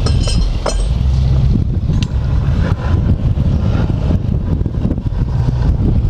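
Dive boat's engine running steadily at low speed while manoeuvring, with wind rumbling on the microphone.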